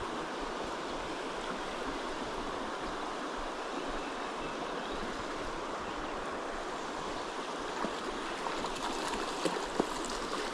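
Creek water running steadily, with a few small sharp knocks near the end.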